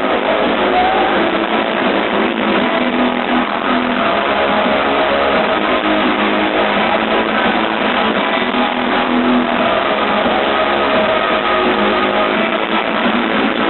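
Live electronic bass music played loud over a concert sound system and captured on a phone, so it comes out distorted and thin, with little deep bass. A rising synth sweep comes in near the end.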